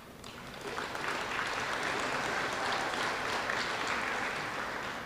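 Audience applauding. It swells up within the first second, holds steady, and fades away near the end.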